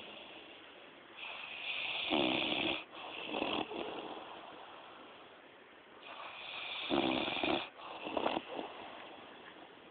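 A person snoring: two loud snores about five seconds apart, each a long rasping breath ending in a snort-like rattle, then a shorter breath.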